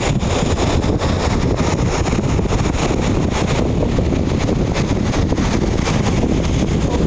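Strong wind buffeting the microphone: a loud, steady rumble that does not let up.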